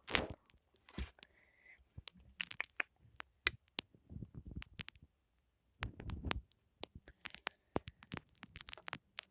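Foam squished and rubbed close to the microphone, giving uneven bursts of crackling, clicks and soft squishes.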